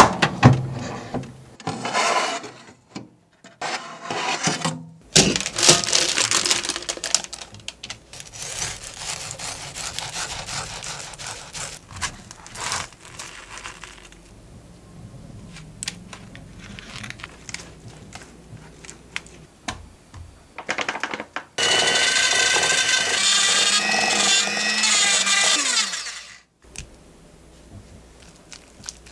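Short kitchen handling sounds, then about five seconds of an electric hand mixer running steadily, likely beating buttercream. Its pitch drops as it winds down and stops.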